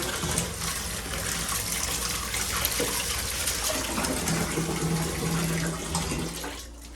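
Bathtub tap running, water gushing into a tub to soak and rinse a sleeping bag. A low steady hum joins in a few seconds in, and the water stops about six and a half seconds in.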